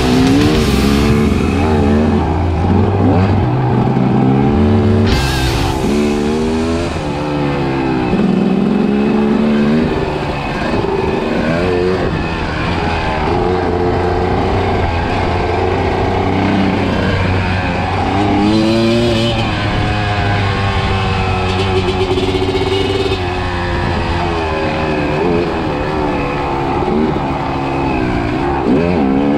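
Kawasaki KX250 dirt bike engine revving hard, its pitch climbing and dropping back again and again as the throttle is opened and closed and the gears change.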